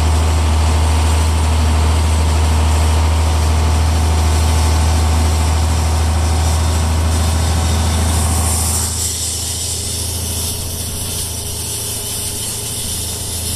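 John Deere 5010 tractor's six-cylinder diesel engine running steadily with a strong low hum while pulling a chain pasture drag. The sound gets somewhat quieter and duller about nine seconds in.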